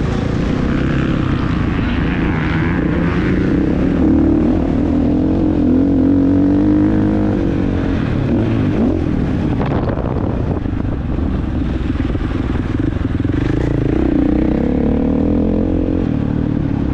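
Husqvarna FC 450's 450 cc single-cylinder four-stroke motocross engine running hard under throttle, its revs falling and rising several times as the rider rolls off and gets back on the gas.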